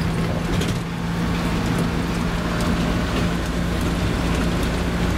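Minibus driving on the open road, heard from inside the cabin: a steady engine drone with a constant low hum, under an even hiss of tyre and road noise and a few faint rattles.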